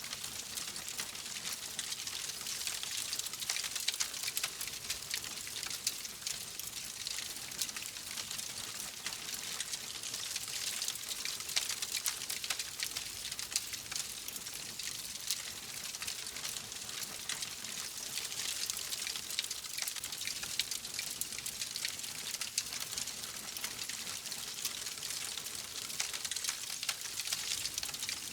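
Wood fire crackling: a steady hiss scattered with many small, quick pops.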